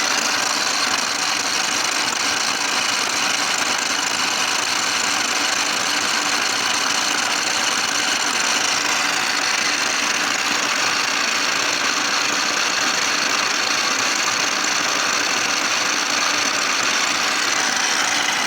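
Model 675 universal milling machine running steadily at 1050 rpm, taking a cut in metal at a feed of 21.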